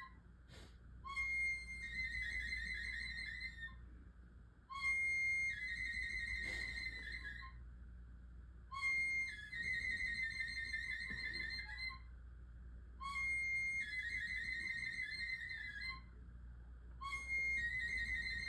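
A high whistle sound repeating about every four seconds, five times. Each time it holds one steady note for about a second, then breaks into a warbling trill for about two seconds.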